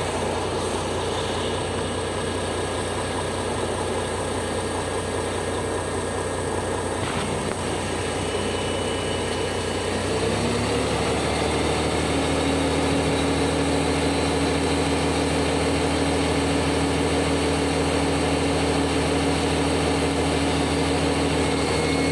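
Liebherr LTM 1120-4.1 mobile crane's diesel engine running steadily while the counterweight hydraulic cylinders retract. About ten seconds in, the engine note shifts and gets a little louder, with a new steady hum that holds to the end.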